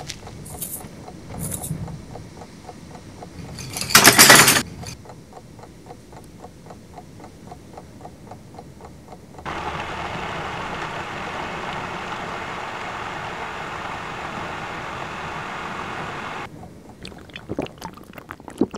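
Small electric food chopper running for about seven seconds as it chops crumpled paper into pulp, starting and cutting off abruptly. Before it there is a soft steady ticking, and a brief loud burst of noise about four seconds in.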